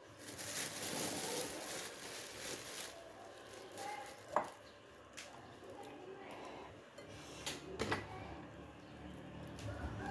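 Noodles and fried fish cakes being put into a ceramic bowl: rustling handling noise for the first few seconds, then a few light clinks against the bowl, the sharpest a little over four seconds in.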